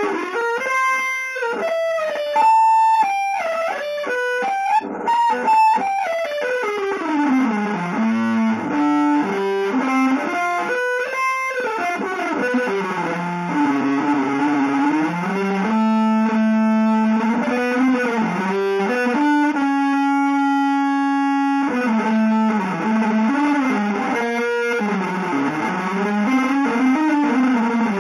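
Electric guitar improvising freely, with no steady beat. Its notes are long and sustained and often slide up and down in pitch, and one note is held for a couple of seconds about two-thirds of the way through.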